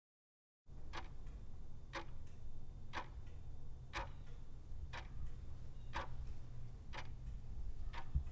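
Clock ticking about once a second, eight ticks in all, over a steady low hum. It starts abruptly just under a second in.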